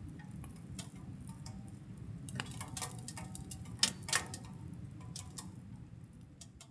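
Thick firewood logs burning in a wood stove: irregular crackles and pops over a low, steady rush of flame, the loudest pops about four seconds in, fading out near the end.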